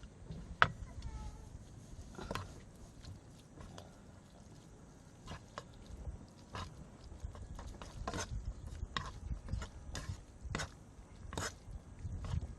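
Chewing and eating sounds, with scattered light clicks and knocks through it.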